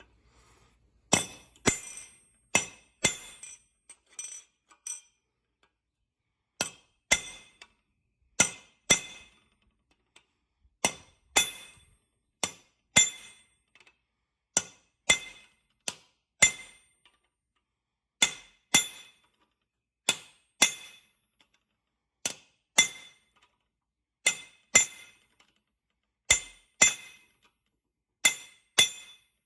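Hammer striking steel rivets, peening the heads round to fasten replacement sickle sections to a McCormick 27-V mower's sickle bar. Sharp, ringing metal-on-metal strikes come one or two at a time with short pauses between them, about forty in all.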